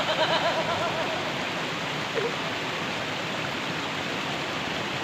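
Steady rushing noise of running water, even throughout, with a brief wavering tone in the first second.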